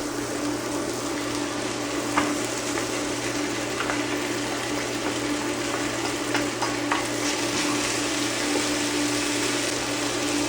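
Pasta and vegetables sizzling in a frying pan on an induction cooktop while being stirred, with a few clicks of the utensil against the pan. A steady low hum runs underneath.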